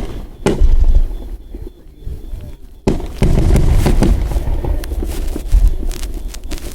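Aerial fireworks bursting: a loud bang about half a second in, then from about three seconds a rapid barrage of many bangs and crackles over a heavy low rumble.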